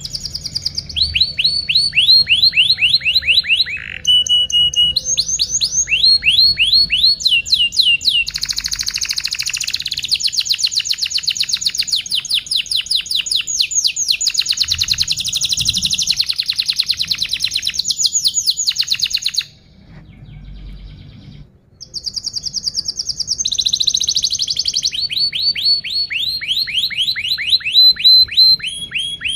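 Domestic canary singing a long song of rapid trills, each tour a run of quick repeated downward-sliding notes lasting a few seconds before it switches to another, with a short break about two-thirds of the way through.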